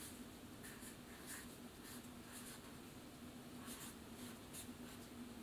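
Felt-tip marker writing on paper: a string of faint, short scratchy strokes as a word is lettered.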